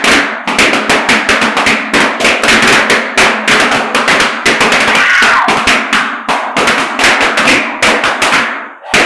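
Many rubber party balloons bursting in quick succession, several sharp pops a second, as people press and stamp on them. The popping thins out briefly near the end.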